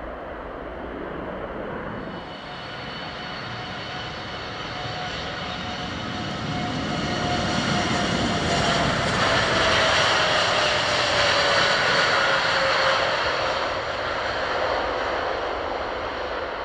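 Boeing 787-9 airliner's GEnx-1B jet engines at takeoff power going by: a jet roar with a whine that slides slowly down in pitch, swelling to its loudest about halfway through and easing near the end.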